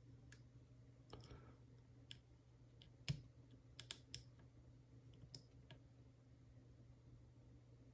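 Faint, irregular small clicks and ticks of a flag pick and tension wrench working the pins of a dimple cam lock while it is being picked, with the loudest click about three seconds in.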